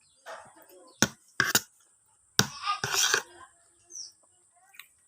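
Close-up eating sounds: a few sharp clicks and short crunching, smacking bursts of someone chewing rice and bamboo shoots, with a brief high bird chirp about four seconds in.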